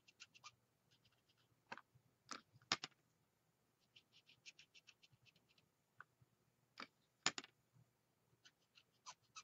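Faint marker strokes on cardstock: quick runs of light ticks, with several sharper clicks scattered through.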